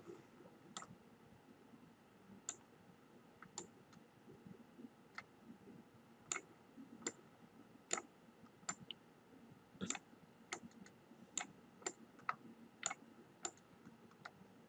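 Faint computer mouse clicks, irregular, roughly one a second, some coming in quick pairs, as blocks are selected and dragged.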